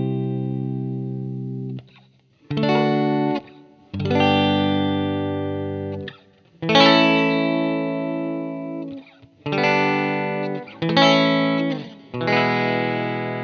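Background music: guitar chords played through effects, each struck and left to ring and fade for one to two seconds, with short breaks between them.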